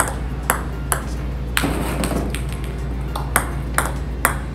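Table tennis ball clicking on the table and off the racket during short stop returns played just over the net: a string of light, sharp clicks at about two a second, over a low steady hum.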